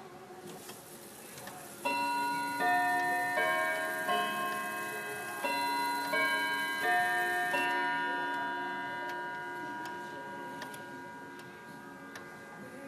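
Mechanical clock chiming a tune of about eight struck notes, starting about two seconds in, then ringing on and slowly dying away. Faint ticking is heard before the chime.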